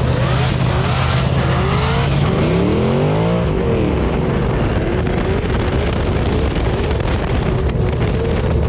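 Car engines running and revving, with a steady idling engine underneath. About two seconds in, one engine climbs in pitch and falls away again, as a car accelerates past.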